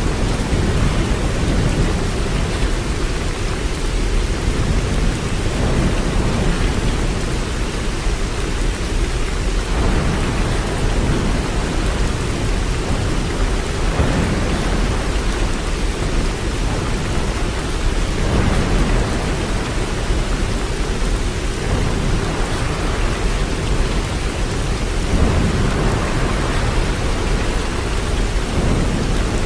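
Waterfall: a steady, loud rush of falling water with a deep low rumble that swells and eases every few seconds.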